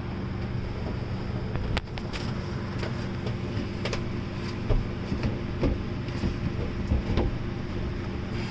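Repeated knocks, bumps and scrapes of a plastic cooler-refrigerator being pushed and wiggled into a tight wooden cabinet opening. The knocks get louder and closer together in the second half, over a steady low hum.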